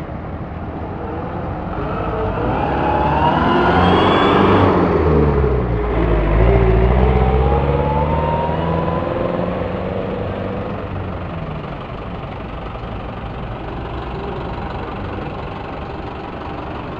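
Motor vehicle passing close by a roadside, its engine growing louder with pitch rising, breaking off about five seconds in, then rising again as it moves away, over steady traffic noise.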